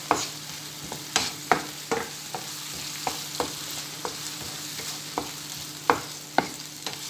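Diced onion sizzling in oil in a pan while being stirred, with the utensil knocking and scraping against the pan in irregular sharp clicks. The onion has just been salted to help it soften.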